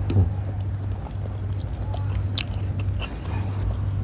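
Close chewing and mouth sounds of a person eating by hand, boiled banana heart and rice, with scattered light clicks over a steady low hum.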